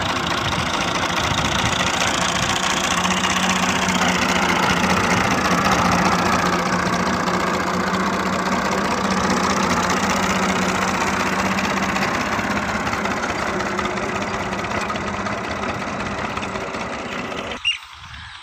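Massey Ferguson 240 tractor's three-cylinder diesel engine running steadily under load while pulling a ridger through soil. Near the end the sound drops off sharply to a much fainter engine.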